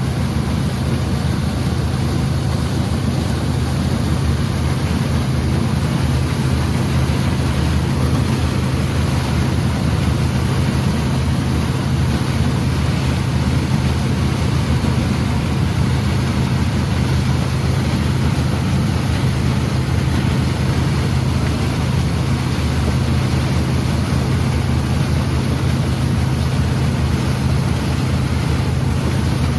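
Combine harvester running steadily while harvesting corn: a constant low engine drone with machinery noise over it, unchanging throughout.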